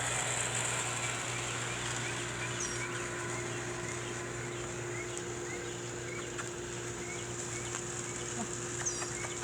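Small birds chirping outdoors: short high chirps repeating about once a second, with two higher, sharper calls, one early and one near the end, over a steady high hiss and a low steady hum.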